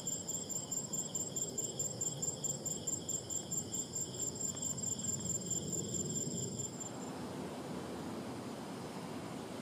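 Insects chirping in a high, evenly pulsing trill that cuts off suddenly about seven seconds in, leaving a steady low rushing background noise.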